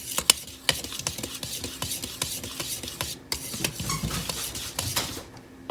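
Dry shortcake ingredients (flour, sweetener, baking powder, salt) being stirred together in a mixing bowl: quick, irregular scraping with light clicks of the utensil against the bowl.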